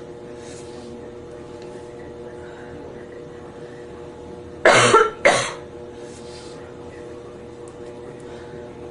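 A man with a cold coughing twice in quick succession about halfway through, with faint breaths between.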